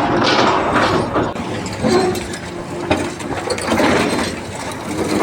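Irregular mechanical clattering and knocking, as of machinery or metal parts working.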